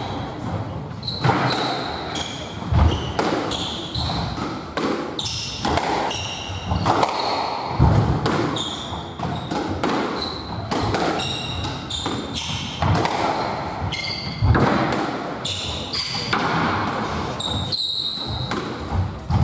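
Squash rally: the ball being hit by rackets and smacking off the court walls and floor in quick succession, with frequent short squeaks of players' shoes on the wooden floor and a few heavier thuds.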